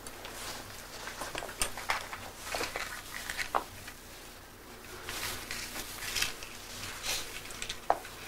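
Paper rustling with scattered light clicks and taps as small objects are handled on a desk, over a faint steady hum.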